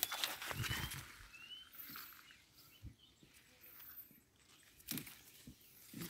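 Grass and dry stems rustling and crackling as someone pushes through dense vegetation, busiest in the first second and again near the five-second mark. Two short, high, rising squeaks come in the first second and a half.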